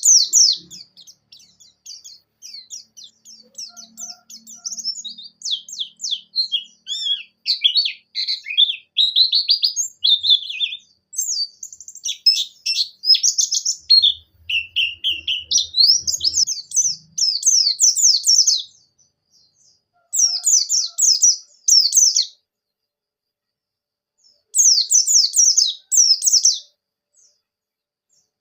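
White-eye (pleci) singing a long, fast twittering song of rapid high chirps and trills, with some notes sliding down in pitch. Near the end it breaks into short bursts separated by pauses.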